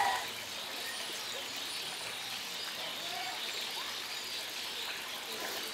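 Quiet outdoor ambience: a steady faint hiss with a few faint bird chirps.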